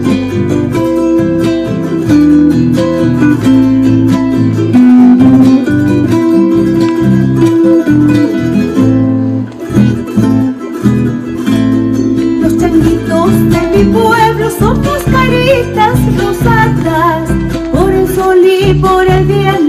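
Folk music played on guitar and other plucked strings, with a voice starting to sing about two-thirds of the way in.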